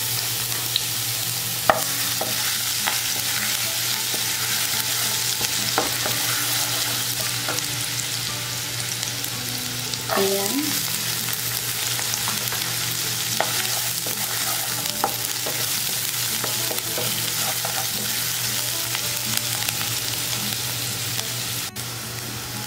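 Minced garlic, then diced onion, sizzling in hot olive oil in a nonstick wok, with a steady crackling hiss. A wooden spoon stirs and scrapes the pan, giving scattered light clicks, and the sizzle gets a little louder about ten seconds in.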